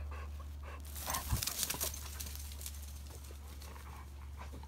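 Labrador retrievers running off across dry grass and fallen leaves: a quick flurry of scrambling footfalls and leaf crackle about a second in, over a steady low rumble.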